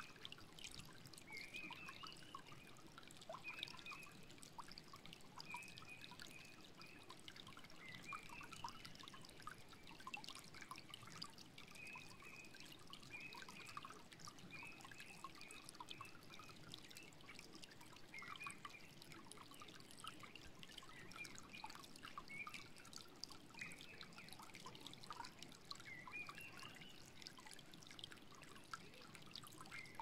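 Shallow stream flowing: a faint, steady water sound with many small quick splashes.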